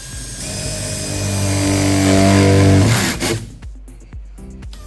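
Cordless drill boring a pilot hole through a van's sheet-metal roof, its motor whining under load and growing louder before it stops about three seconds in.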